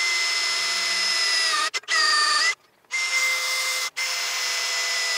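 Cordless drill boring into a small steel block: a steady high motor whine that sags in pitch as the bit bites, stopping and restarting three times.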